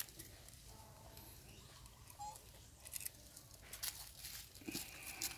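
Faint, scattered crackling and rustling of dry leaves and twigs as macaques shift about on them.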